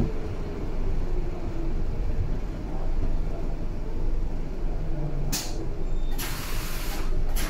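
Berlin U-Bahn A3L71 train with a low running rumble as it comes to rest at a station. Then come three sharp bursts of compressed-air hiss from its pneumatics, about five, six and seven seconds in, the middle one longest.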